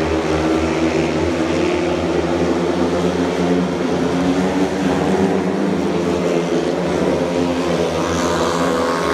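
A pack of speedway bikes racing, their 500 cc single-cylinder engines running hard in a loud, steady drone of several tones whose pitch shifts as the riders go through the bends.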